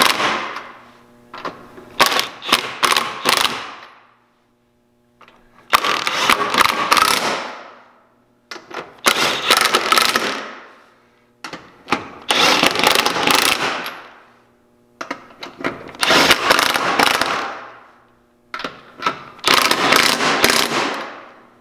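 DeWalt XR cordless impact wrench hammering nuts onto a billet radius rod plate. It runs in about six short bursts of rapid hammering, each fading out as the trigger is let go.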